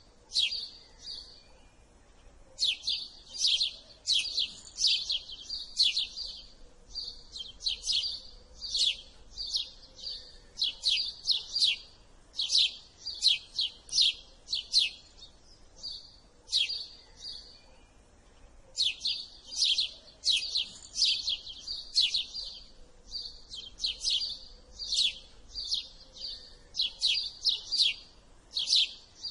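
House sparrow chirping: runs of short, sharp, high chirps, several a second, broken by brief pauses of a second or two.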